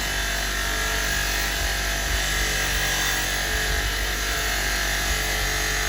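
Small electric motor running steadily, a continuous whir with a constant high whine.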